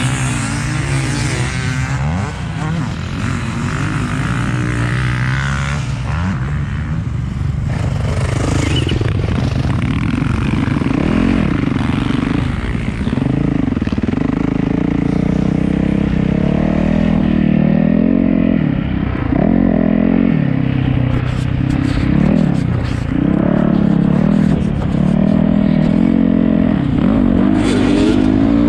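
Dirt bike engine heard from a helmet camera while riding a motocross track, revving up and falling back over and over as the rider works through the throttle and gears. For roughly the first eight seconds the engine note is lower and less even, then the repeated rise-and-fall revving takes over.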